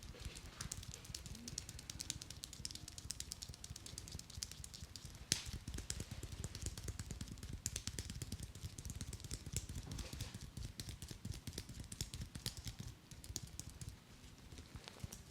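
Rapid, rhythmic patting and tapping of a barber's hands on a customer's head and shoulders during an Indian head massage, with one sharper click about five seconds in.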